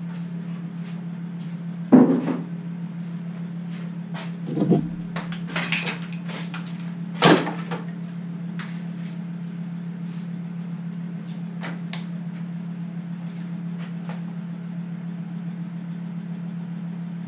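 Steady low hum of workshop machinery with a few knocks and clunks of wood being handled. The loudest knock comes about two seconds in, others near five and seven seconds in, and there are light clicks in between.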